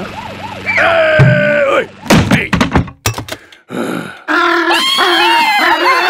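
Cartoon sound effects: a low steady hum with a gliding whistle over it, then a run of thuds and knocks in the middle, then wordless grumbling vocal sounds near the end.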